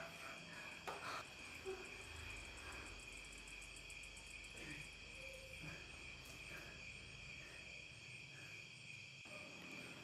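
Faint, steady chirring of crickets, like a night-insect ambience, with a few soft brief sounds underneath.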